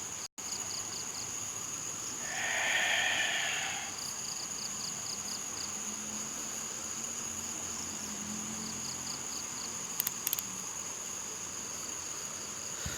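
Insects and crickets: a steady high-pitched trill with runs of short, evenly spaced chirps early on and again around the middle. About two seconds in, a brief hissing swell rises and fades over nearly two seconds, and a few faint clicks come near the end.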